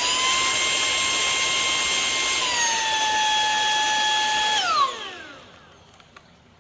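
Wkzay handheld cordless vacuum's brushless motor running with a high whine. Right at the start it steps up to a faster, louder speed, drops back to the lower speed about two and a half seconds in, and is switched off just before five seconds, winding down quickly.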